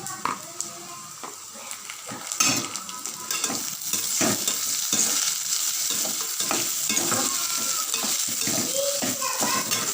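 Shallots frying in hot oil with whole spices, sizzling while being stirred around the pan, with many short scrapes of the stirring spoon. The sizzle grows louder about four seconds in.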